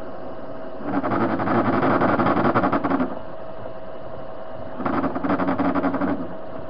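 TV-16 lathe running with a steady hum, broken twice by louder, rough cutting noise, about two seconds and then just over a second long, as the tool takes metal off the steel workpiece.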